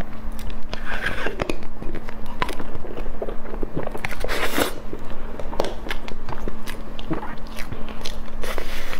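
Close-miked eating sounds: biting into and chewing a soft cream dessert, with many small wet mouth clicks and a louder burst about halfway through. A faint steady hum runs underneath.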